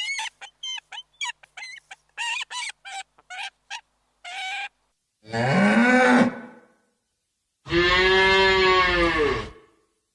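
A quick run of short, high squeaks, then two long cattle moos, each rising and falling in pitch, the second one longer.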